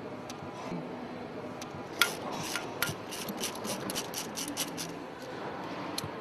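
Protective caps being worked off cylinder head studs by hand. There is rubbing and handling noise, one sharp knock about two seconds in, then a quick series of small clicks.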